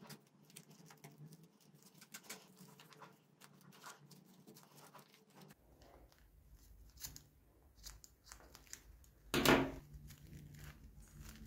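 Nylon paracord rustling with faint small ticks as it is wound and handled around a plier handle, then scissors working at the cord, with one sharp louder clack about nine seconds in.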